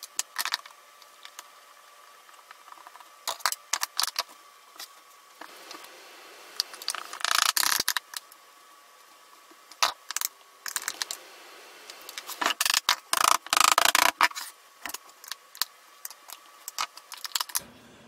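Screwdriver clicking and scraping on rusted screws in a RIDGID shop vac's plastic motor housing, one screw with its head rusted away. Scattered clicks and knocks, with two longer bouts of scraping, the second one the longer.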